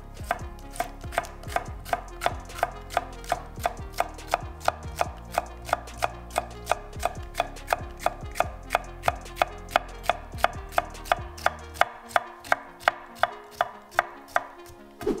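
Masutani VG-1 nakiri chopping a red bell pepper into strips on an end-grain wooden cutting board: a steady, even run of sharp knocks of the blade on the board, between two and three a second.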